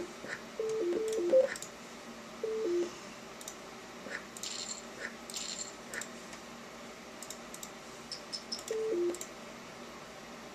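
Poker client's alert beeps from the computer: short two-note falling tones, several in the first three seconds and one more near the end. A scatter of sharp clicks falls in between.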